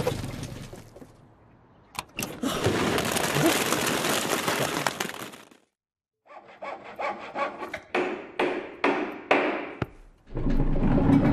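Cartoon DIY building sound effects: a long continuous rasping stretch, a brief cut to silence, then a run of short rasping strokes about three a second, like sawing.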